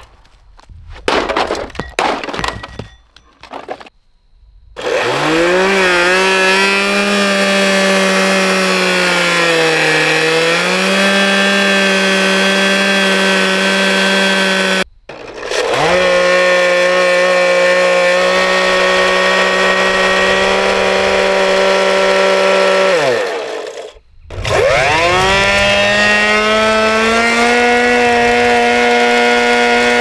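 Sharp Twin Energy vacuum cleaner motor starting with a rising whine and running at a steady high whine; its pitch sags for a moment about ten seconds in. Some short choppy bursts come first. It stops abruptly midway, spins up again, winds down with a falling pitch, and spins up once more near the end.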